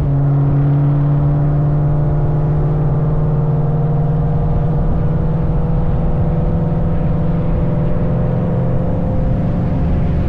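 2003 Mustang SVT Cobra's supercharged 4.6-litre V8 running through an SLP Loudmouth exhaust: a loud, steady low exhaust drone, its pitch creeping slowly upward.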